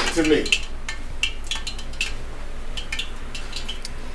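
Scattered light clicks and taps from fried egg rolls being handled on a paper-towel-lined metal baking sheet, over a steady low hum.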